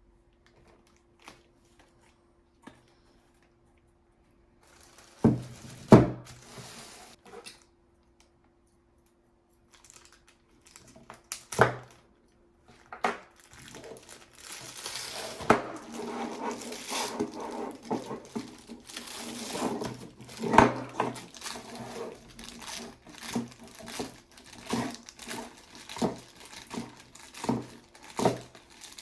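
Packaging being unwrapped and lamp parts handled: crinkling and rustling with scattered knocks and clunks, sparse at first and near continuous over the second half.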